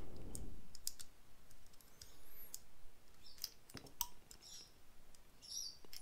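Small screwdriver prying the metal crimp terminals out of a plastic 50 amp Anderson plug housing: irregular light clicks and short scrapes of metal on plastic.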